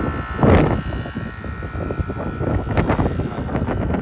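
A 5-ton R410A heat pump outdoor unit running, its compressor and fan making a steady mechanical noise with a tonal hum that fades about halfway through. It is in heating mode, the refrigerant flow reversed by the reversing valve. A loud burst of noise comes about half a second in, and short clicks and knocks follow in the second half.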